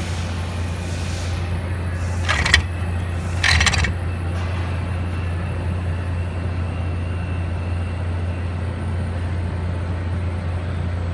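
Steady low background hum, with two brief handling noises about two and a half and three and a half seconds in.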